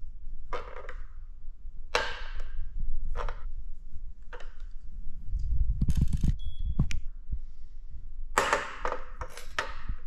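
Trickstuff Piccola hydraulic disc brake parts (lever with hose, caliper, bolts, washers) being handled on and off a kitchen scale: a string of short rustles, taps and small clinks, with a heavier knock and a brief high ringing tone about six seconds in.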